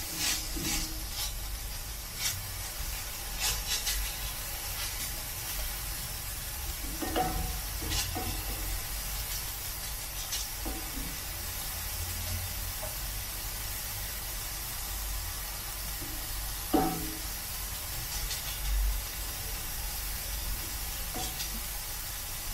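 Finely diced onion and bell pepper sizzling gently in olive oil in a cast-iron skillet, sautéing until translucent, as a sofrito. A wooden spoon scrapes and taps against the pan now and then as it is stirred, with one louder knock about three-quarters of the way in.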